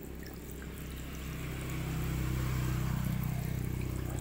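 Low, steady motor hum that swells about a second in and eases off near the end, over the hiss of running water.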